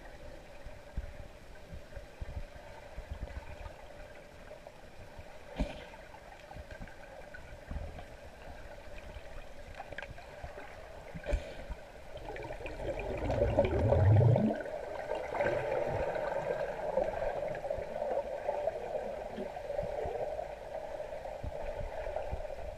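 Underwater pool sound through a submerged camera: a muffled wash of water with a couple of sharp clicks, then about twelve seconds in a louder low churning surge of turbulence as divers kick their fins close by, settling into a steady bubbling rush.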